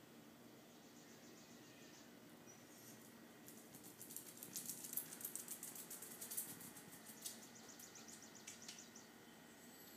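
Dachshund's toenails clicking quickly on a hardwood floor as it trots, from about three and a half seconds in until near the end, loudest in the middle.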